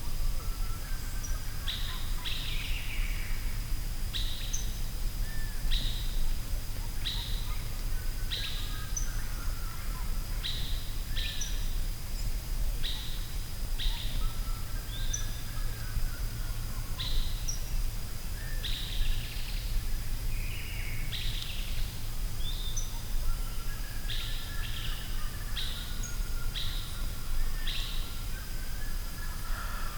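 Forest ambience: birds calling with short high chirps repeating every second or two, with softer lower warbling calls in between, over a steady low rumble and a faint thin high whine.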